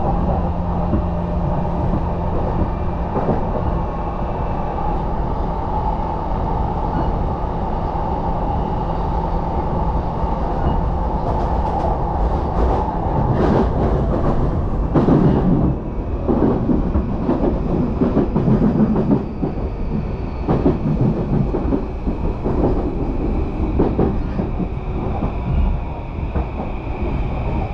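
Yamanote Line electric commuter train heard from inside the car while running: a steady low rumble with a held whine for the first half. About halfway through, the wheels start clattering over rail joints in quick runs of knocks.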